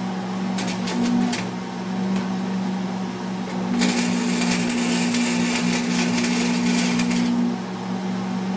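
Small 110-volt flux-core wire welder welding a steel fender brace: a few short arc crackles about half a second in, then a steady crackling arc for about three and a half seconds that stops near the end. A steady hum runs underneath.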